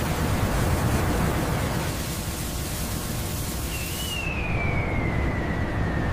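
Steady rushing and hissing of high-pressure water jets spraying large tyres in a churning hot-water wash bath. About four seconds in, a thin whine joins it and slowly falls in pitch.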